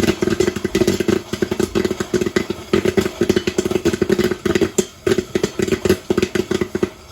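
Stainless steel Whirley Pop stovetop popcorn popper being hand-cranked, its stirring gears rattling in a rapid, dense clatter while popcorn kernels pop inside the lidded pot. It is near the end of popping, with the pot filling up and getting harder to stir.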